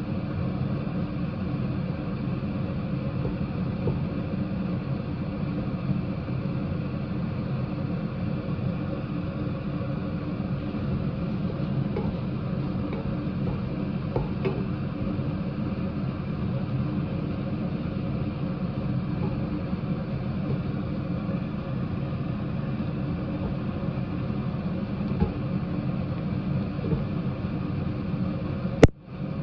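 A steady low mechanical hum runs throughout, with faint scrapes and ticks as a wooden spatula stirs fried rice in a stainless steel pot. A single sharp click comes near the end.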